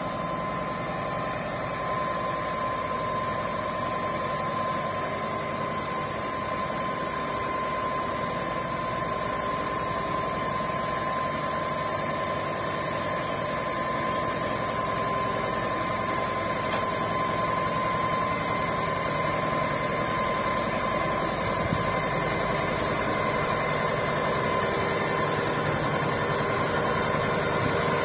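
Heavy engine running steadily at idle, with a constant high tone over the drone.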